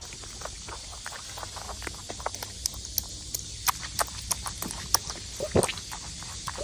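A rabbit chewing fruit: quick, irregular crunching clicks over a steady hiss.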